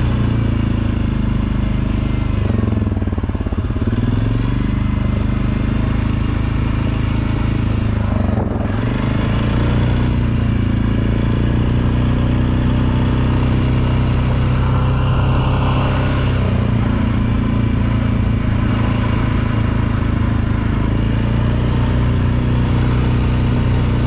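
ATV engine running under way on a trail, holding a steady drone. The pitch dips briefly twice, a few seconds in and again around eight seconds, as the throttle eases and picks up again.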